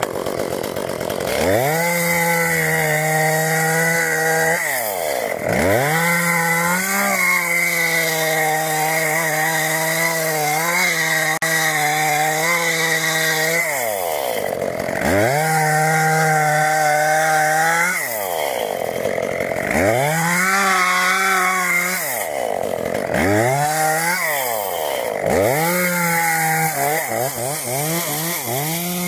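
Chainsaw running at high speed, its engine pitch dropping sharply and climbing back again and again as it is throttled or loaded in the cut.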